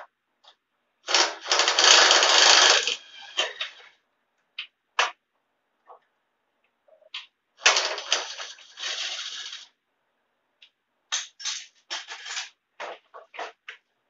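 A handheld cordless power tool running in two bursts of about two seconds each, about a second in and again near the middle, driving fasteners during the tractor teardown. Metal tools and parts clink between the bursts, with a quick run of clicks near the end.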